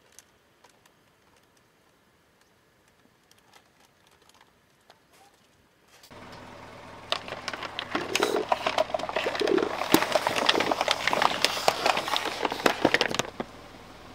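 Car tyre rolling over plastic cola bottles: a dense run of crackling and crunching plastic for about six seconds, ending abruptly. Before it, near silence with a few faint clicks.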